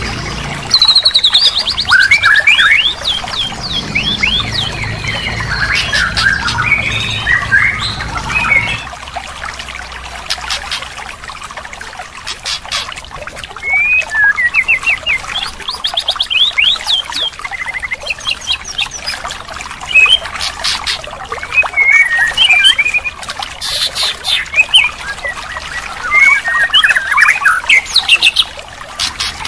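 White-rumped shama (murai batu) singing a varied song: rapid trills, whistled sweeps and sharp chirps, phrase after phrase. A low hum lies underneath for the first nine seconds, then stops.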